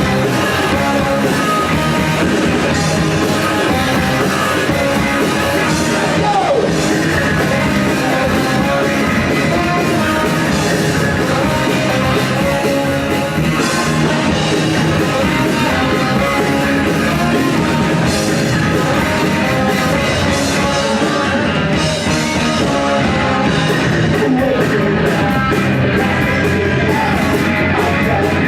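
Loud heavy rock music with guitar and singing.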